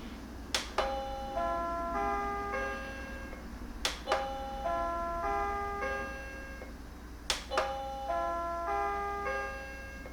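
Commercial call chime playing a short melody of pitched electronic tones, three times over, each time set off by a sharp double click.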